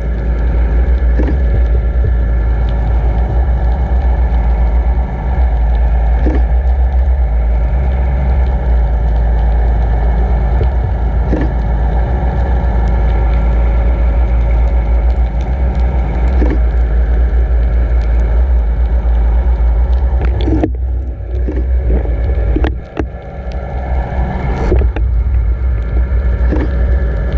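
Steady, muffled underwater rumble of water rushing past a towed camera housing, with the even hum of the towing boat's engine carried through the water. A few sharp knocks from the rig come late on, along with a brief dip in the rumble.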